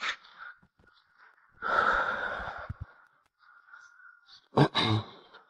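Human breathing: a long, breathy sigh or exhale about two seconds in, then two short voiced sounds near the end.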